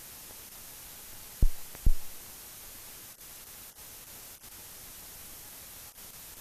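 Steady hiss of an old film-soundtrack transfer with no recorded sound, broken by two loud low pops about half a second apart, roughly a second and a half in.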